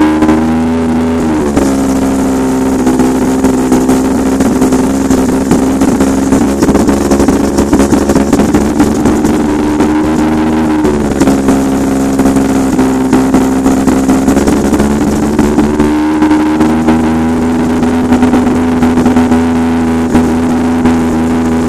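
Freshly rebuilt three-rotor rotary engine of a Mazda RX-7 FD3S idling, heard at the tailpipe. The idle is loud and slightly choppy. The engine speed dips a little about a second and a half in, rises around eleven seconds and settles back down around sixteen seconds.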